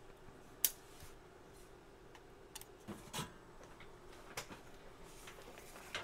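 Sparse sharp clicks and light taps of hand tools being handled and set down, metal tweezers laid on the bench mat; the loudest click comes about half a second in. A faint steady hum runs underneath.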